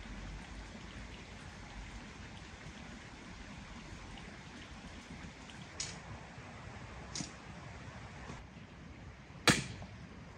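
An axe chopping branches on the ground: a few light knocks, then one sharp, loud chop near the end, over a steady background hiss.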